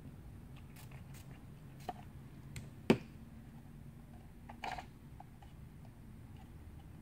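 Handling noise from gluing a plastic armor forearm piece: scattered small clicks and taps, one sharp knock about three seconds in, and a brief rustle near five seconds, over a low steady hum.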